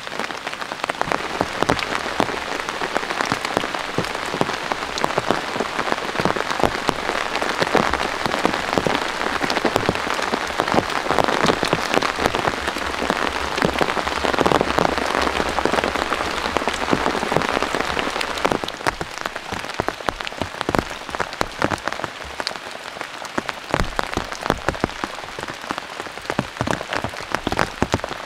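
Rain falling on a plastic tarp, a dense hiss of drops at first that eases about two-thirds of the way through to thinner, more separate drops.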